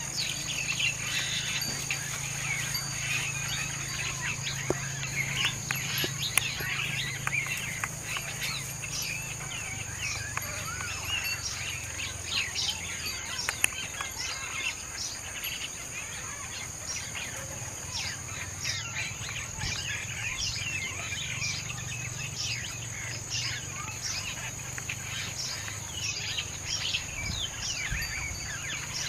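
Many birds chirping in short, rapid downward calls over a steady high-pitched insect drone, with a low hum underneath.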